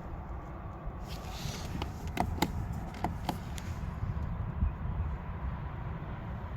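A handful of sharp clicks about two to three and a half seconds in, over a steady low rumble.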